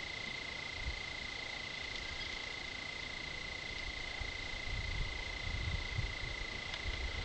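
A steady, high-pitched chorus of small calling animals, one unbroken tone with a hiss above it, with a few low thumps in the second half.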